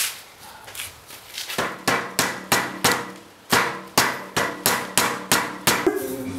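Hammer blows on the stuck cylinder (jug) of a 2001 Kawasaki KLR 650, struck hard and fast to break it free of the crankcase. A run of sharp knocks, about three a second, with a brief pause about halfway through.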